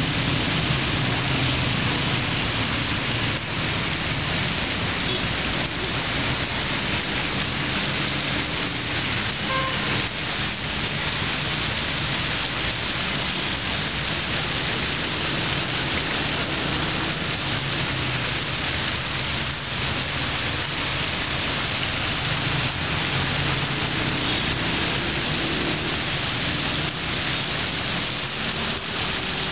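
Fountain jets splashing into shallow water basins, a steady hiss of falling water.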